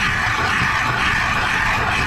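Hand ice auger cranked through river ice, its blades grinding and scraping steadily as it cuts the hole.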